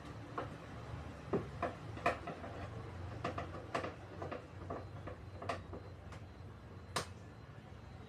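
Irregular light clicks and knocks, about a dozen, over a low steady hum. The sharpest knock comes near the end.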